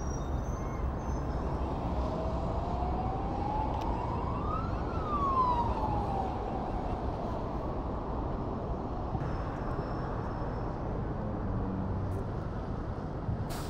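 Steady city street traffic noise, with one siren wail that rises and then falls in pitch about two to six seconds in.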